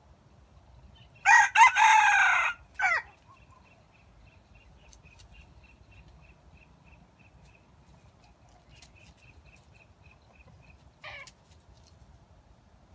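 A junglefowl rooster crows once about a second in: a short, loud crow with a brief clipped final note. Afterwards a faint chirp repeats about three times a second for several seconds, and a short falling call comes near the end.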